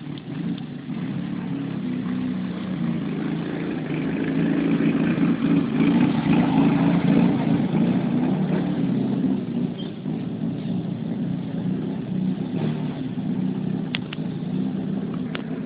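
Fiat 147's engine running under load, growing louder from about four seconds in and easing off again after about nine seconds.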